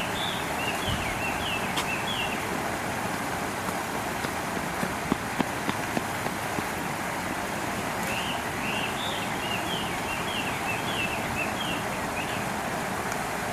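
Steady outdoor background hiss with a small bird chirping a quick series of short high notes twice, near the start and again about two-thirds through. A few faint knocks in between.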